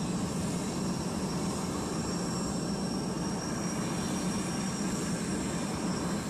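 A C-5M Super Galaxy's GE F138 turbofan engines running steadily on the ground: an even rumble with a constant high whine on top.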